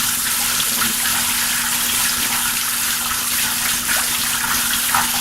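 Kitchen tap running steadily, its water spraying through coleslaw in a strainer to rinse off the mayonnaise.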